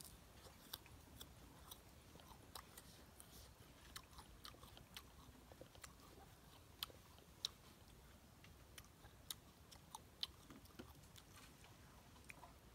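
A bite into a slice of fresh guava, then chewing the crisp fruit: a string of short, sharp crunches, two to three a second.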